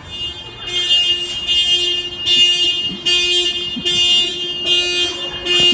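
Car alarm going off: the car's horn sounding in short, evenly spaced blasts, a little more than one a second.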